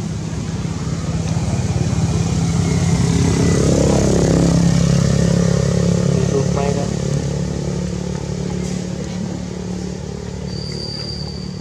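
A motor vehicle's engine passing by, its hum growing louder to a peak about four to five seconds in and then fading away. A faint high steady tone comes in near the end.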